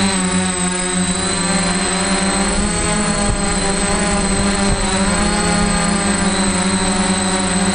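DJI F450 quadcopter's electric motors and propellers buzzing steadily, heard from a GoPro mounted on the craft, with a steady high whine over it. The pitch wavers a few seconds in as the motors change speed.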